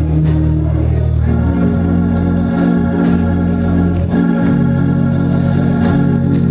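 Organ playing slow, held chords over a low bass line, the chords changing every second or two.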